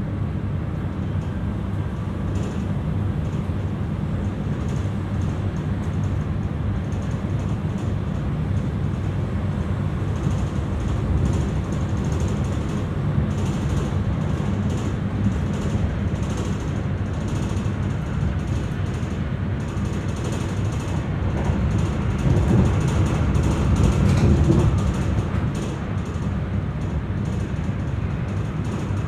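Commuter electric train running on the track: a steady low rumble of wheels and running gear with faint rattles, growing louder for a few seconds a little past the twenty-second mark.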